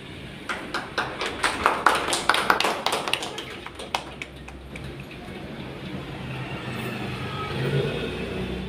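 A small group of people clapping, irregular and close together for about three seconds, then dying away to low room noise.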